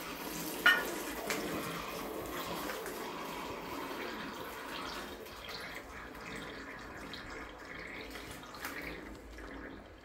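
Water running from a bath tap and splashing into the bath, with one sharp knock about a second in.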